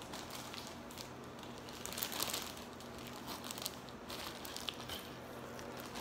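Plastic zip-top bag of ice crinkling and a cloth towel rustling as the bag is wrapped by hand, in irregular handling noises with a busier flurry about two seconds in.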